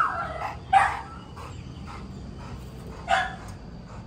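A dog barking in short single barks: one right at the start, another just under a second in, and a third about three seconds in.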